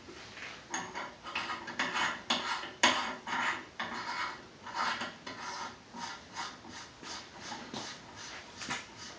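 Metal parts rubbing and scraping during AR-15 barrel assembly: a quick run of short rasping strokes, a few a second, loudest about three seconds in.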